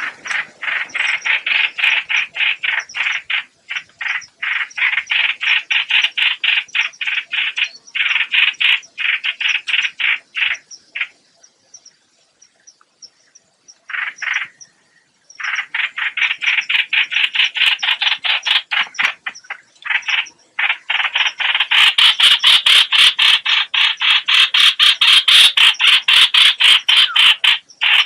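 Lure-call recording of the bird that bird trappers call 'hoạch hoạch': long runs of harsh, rapid, croaking pulses with short breaks between them. It grows louder and harsher near the end.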